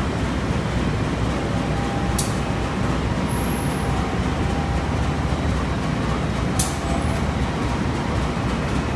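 KAI CC-class diesel locomotive's engine running with a steady low hum. Two short high clicks come through, about two seconds in and again near the end.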